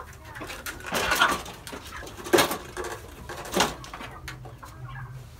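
Broiler chickens calling with low clucks, and three short bursts of rustling and knocking as a hen is handled into a plastic scale bowl.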